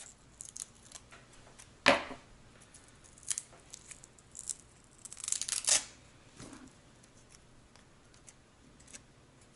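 Small adhesive Velcro (hook-and-loop) pads being handled and pulled apart: quiet fiddling clicks, a sharp click about two seconds in, and a short tearing rasp a little past the middle.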